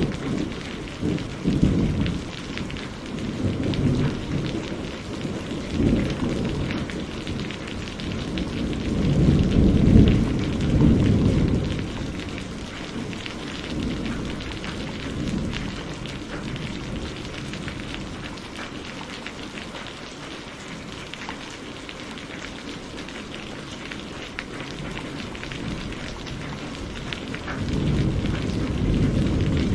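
Steady rain falling and pattering on surfaces, with low rumbles of thunder swelling about nine seconds in and again near the end.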